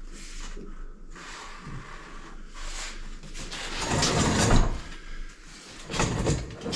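Car grille and front bumper parts scraping and rattling against each other as they are handled and pushed into place, loudest about four seconds in.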